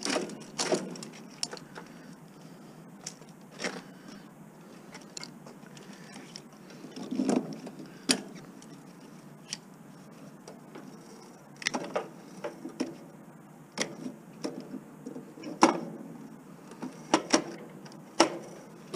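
Irregular metallic clicks, taps and rattles of parts and wiring being handled while a commercial washing machine is stripped for scrap. The louder clinks come now and then, with quiet handling between.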